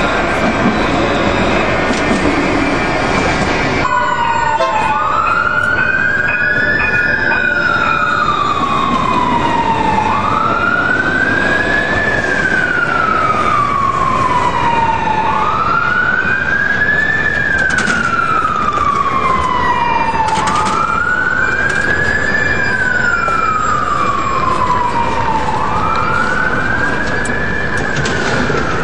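An emergency-vehicle siren wailing in a slow rise and fall that repeats about every five seconds, starting about four seconds in. Before it is a stretch of loud street noise with a tram passing close by.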